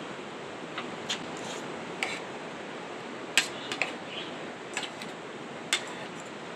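A run of scattered sharp clicks and taps, about seven in all and irregularly spaced, the loudest about halfway through, over a steady background hiss.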